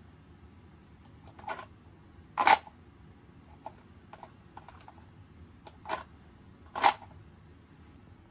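Walther PDP pistol drawn from and pushed back into a rigid molded plastic holster by hand: sharp plastic-and-metal clicks in two pairs, a softer click followed about a second later by a loud snap, once about 2.5 s in and again near the end. Faint small ticks of handling fall between them.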